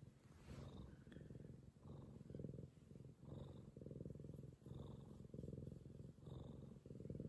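Domestic cat purring close up while being stroked: a low, steady purr that swells and breaks in an even rhythm, a little over once a second, with each breath in and out.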